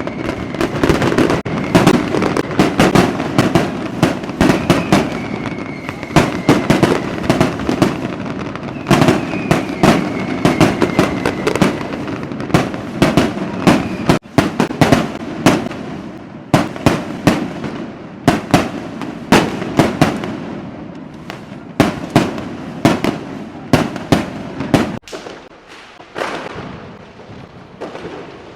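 Dense fireworks barrage: rapid, overlapping cracks and bangs, with faint high whistles that fall slightly in pitch during the first half. The bursts thin out and get quieter after about 25 seconds.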